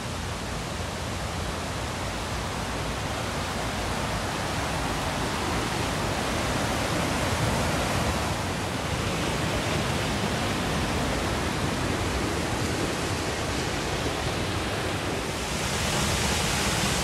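Rushing white water of a river: a steady noise that slowly grows louder, stepping up and getting brighter about fifteen seconds in.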